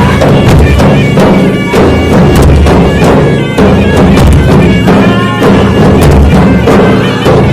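Dhol drums beaten hard and fast in a steady, driving rhythm. A shrill, reedy wind instrument plays a wavering melody over the drumming.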